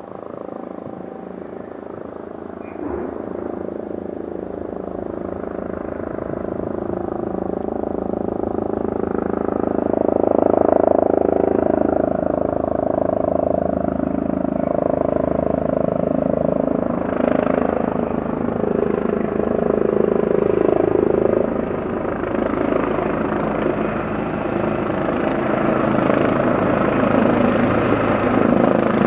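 Airbus Helicopters EC145T2 (BK117D-2) twin-turbine helicopter in flight, its rotor and engine noise growing louder over the first ten seconds or so as it approaches and comes nearly overhead, then holding steady.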